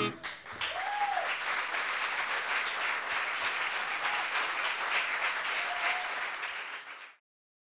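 Audience applauding. The applause cuts off abruptly about seven seconds in.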